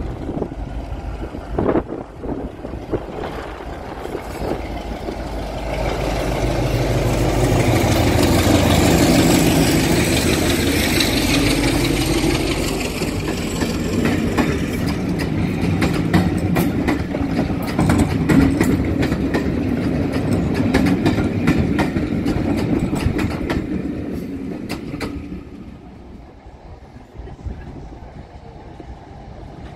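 BR Class 33 diesel locomotive, with its Sulzer eight-cylinder engine, running past with a rake of Mk1 coaches: the engine builds up and is loudest early on, then the coach wheels clickety-clack over the rail joints. The sound dies away near the end as the train draws off.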